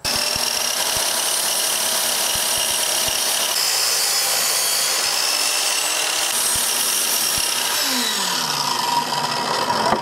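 Chicago Electric sliding compound miter saw running and cutting into a wooden board, making plunge cuts to cut out a rectangular opening. Its motor pitch falls near the end as the blade winds down.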